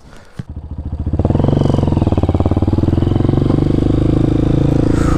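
Honda CRF230F's single-cylinder four-stroke engine revving up as the dirt bike pulls away, growing loud about a second in, then running steadily under way.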